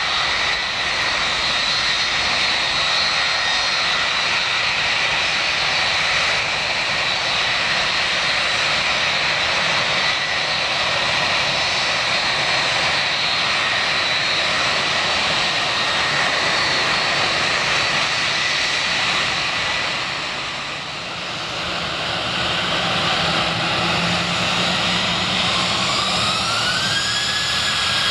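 Jet airliner turbofan engines at take-off power, a steady loud roar with a high whine that eases off after about twenty seconds. Then another airliner's engines spool up for its take-off roll, a whine rising in pitch near the end.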